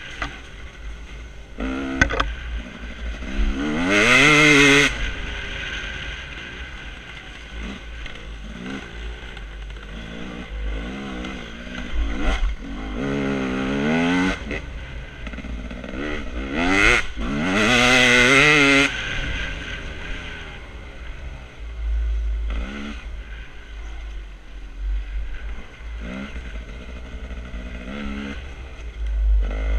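Enduro dirt bike's engine, heard from the rider's helmet, revving up and dropping back again and again as it is ridden along a rough trail, with the hardest bursts of throttle about four seconds in and again past the middle. A low rumble runs underneath.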